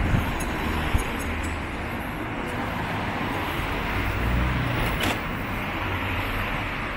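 Street traffic: cars and scooters passing on a narrow city street, with a steady hiss of road noise and low engine rumble. There are brief sharp clicks about a second in and about five seconds in.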